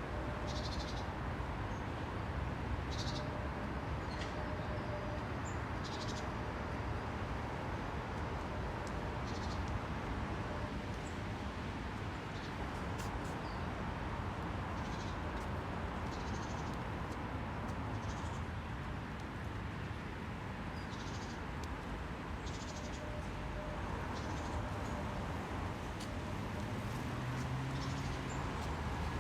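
Birds giving short chirps every couple of seconds over a steady background rush of outdoor noise.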